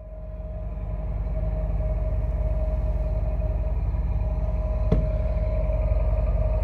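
Cruise ship's engine and machinery rumble heard inside the hull by a porthole: a steady low drone with a constant hum over it, fading in over the first second or two. A single sharp click about five seconds in.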